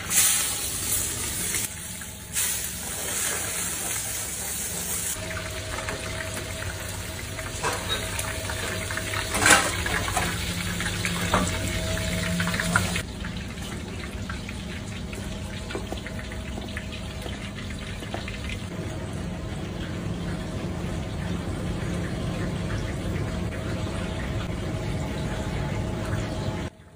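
Steady hissing kitchen noise of food cooking in pans on a stove, with a few sharp utensil knocks around eight to eleven seconds in. The hiss thins at about thirteen seconds and cuts off just before the end.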